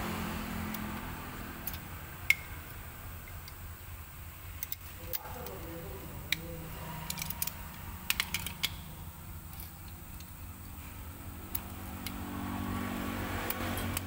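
Small metal clicks and clinks of drum brake shoes, return springs and adjuster parts being handled and fitted together by hand: scattered single clicks, the sharpest about two seconds in, and a quick cluster around eight seconds, over a steady low hum.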